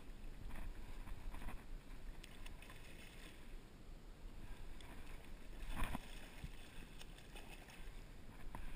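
A hooked trout splashing at the surface in several short bursts, the loudest about six seconds in. Underneath is a steady low rumble of wind on the microphone.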